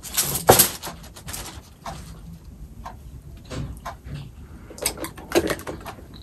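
Handling noise from a small leather-trimmed handbag: a burst of rustling in the first second and a half, then scattered light clicks and knocks as it is picked up and lifted by its top handle.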